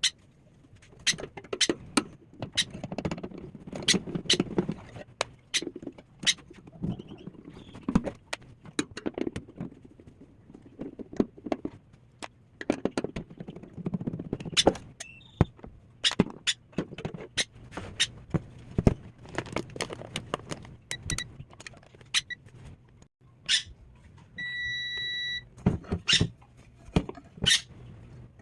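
Irregular clicks and knocks of handling a microwave oven during repair. Near the end come a couple of short electronic beeps and then one beep about a second long over a low hum.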